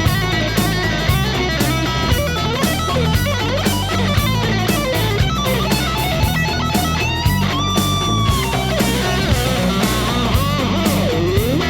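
Rock music with electric guitar, bass and drums playing at a steady beat. A lead-guitar note slides up and is held for about a second, a little past the middle.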